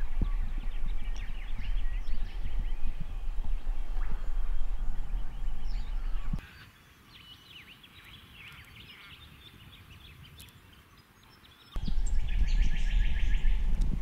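Wind buffeting the microphone with birds chirping and calling over it. About six seconds in it cuts to a much quieter stretch of faint birdsong, then the wind rumble returns with a quick run of repeated bird calls.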